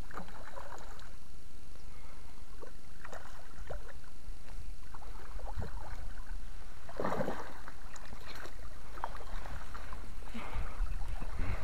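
Hooked fish splashing at the water's surface as it is played in to the bank, a series of irregular splashes with the loudest about seven seconds in. Near the end a landing net scoops through the water under the fish.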